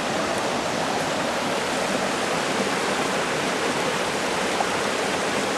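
Cold-water mountain brook rushing over rocks and a small cascade: a steady, even rush of water.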